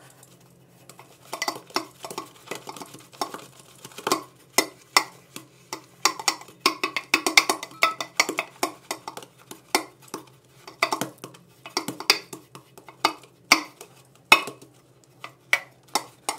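Synthetic shaving brush swirling lather in a stainless steel shaving bowl: a wet stirring with frequent sharp clicks and taps against the metal bowl, at an irregular pace.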